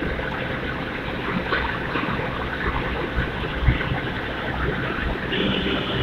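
Steady industrial noise from a running induction melting furnace installation: a continuous rumble and hiss. About five seconds in, a steady high tone and a lower hum join it.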